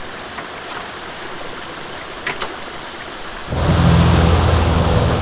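Water trickling and running through a culvert pipe, with a few faint drips or ticks. About three and a half seconds in, a much louder low rumble comes in and holds.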